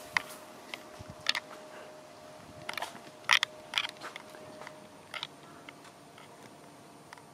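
Six sharp, irregular clicks and clacks from the handling of a handheld camera and its shutter, the loudest about three seconds in.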